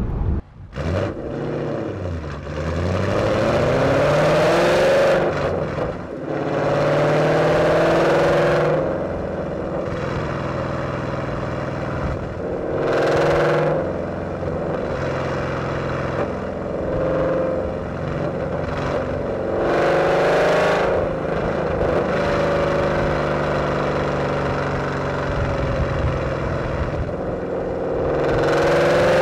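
2012 Ford Mustang GT's 5.0 L Coyote V8 with Borla long-tube headers, off-road X-pipe and ATAK axle-back, resonators deleted, accelerating hard about five times. The exhaust note rises in pitch with each pull and falls back to a lower, steadier drone in between.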